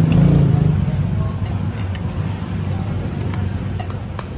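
A motor engine running close by, a steady low hum that is loudest in the first second, with a few light clinks of metal utensils against a steel bowl and background voices.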